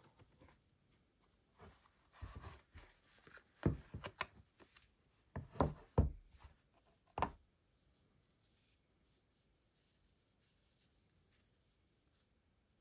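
Apple Watch Series 8 and its molded paper tray handled in cotton gloves: the watch is pried out of the tray, with a quick run of knocks and taps from the case and cardboard in the middle, then only faint soft rubbing as the watch is turned in the hands.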